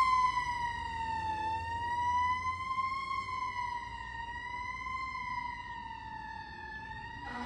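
Fire engine siren wailing, its pitch slowly rising and falling about every two seconds, fading as the engine drives away.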